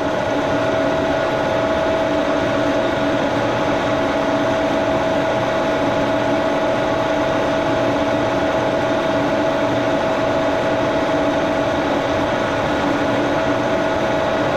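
1942 Brown & Sharpe No. 2 milling machine running steadily, its vertical spindle turning an end mill, with a constant whine over even machine noise.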